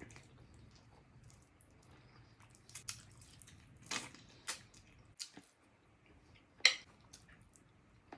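Close-up wet eating sounds: chewing fried chicken and mashed potatoes, with scattered mouth clicks and smacks, the loudest about two-thirds of the way through.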